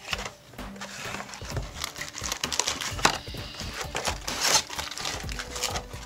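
Foil-wrapped trading card packs and a cardboard box rustling and crinkling as they are handled, with irregular small taps and scrapes.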